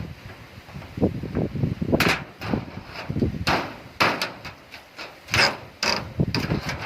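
Irregular knocks and bangs, about a dozen at uneven spacing, some with a low thud.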